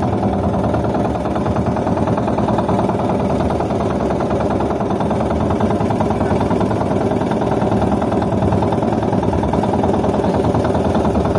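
A small fishing boat's engine running steadily at a constant pitch.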